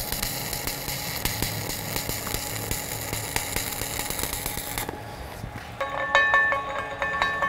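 Stick-welding arc crackling steadily as a hardfacing electrode burns on the welder's stiff arc setting; it stops abruptly about five seconds in. About a second later, background music with held tones and a steady beat.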